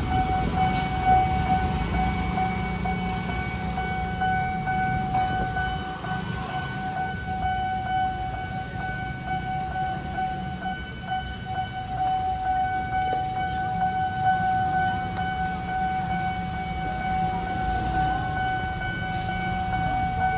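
Railway level-crossing warning siren holding one steady high tone, signalling that the barriers are coming down for an approaching train. Underneath is a steady low rumble of motorcycle and car engines waiting at the crossing.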